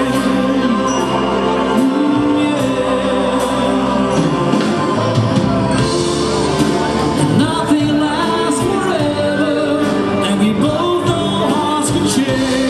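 A rock band and wind band playing live together, electric guitars and drums with cymbal strokes under sustained band chords, and a male lead singer singing over them.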